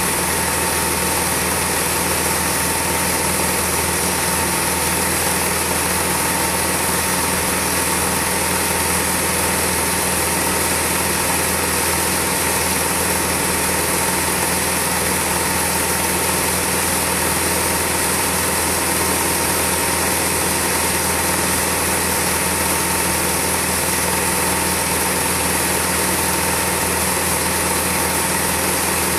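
Film projector running: a steady mechanical whir with hiss and a constant hum, unchanging throughout.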